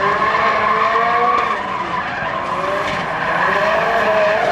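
Yellow Subaru BRZ's flat-four engine revving up and down as the car drifts, with the tyres squealing and skidding on the asphalt.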